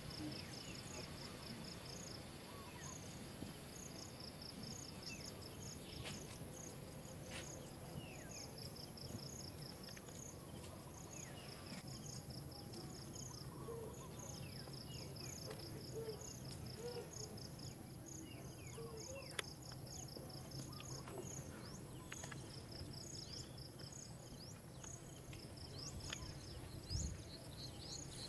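Insects chirping in rapid, high-pitched pulse trains that repeat over and over, with a few faint short chirps on top.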